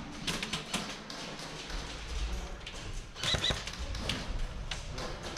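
Indoor airsoft play: scattered sharp clacks and taps of airsoft guns firing and BBs striking, irregular, with a denser flurry a little past halfway.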